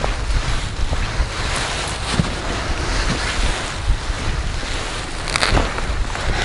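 Wind buffeting the microphone, a steady rushing noise with heavy low rumble, with one short sharp noise about five seconds in.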